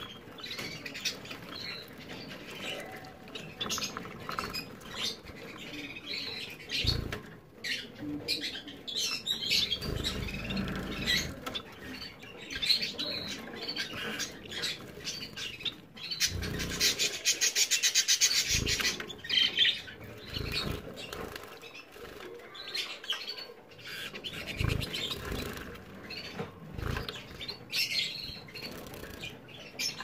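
Zebra finches bathing in shallow water dishes: wings fluttering and splashing in the water, with short chirping calls throughout. About halfway through comes the loudest part, a spell of rapid fluttering splashes lasting a few seconds, and a few dull thumps sound here and there.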